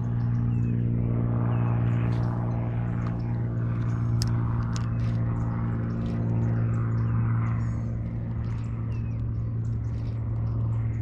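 A steady low machine hum, with scattered faint ticks and clicks over it.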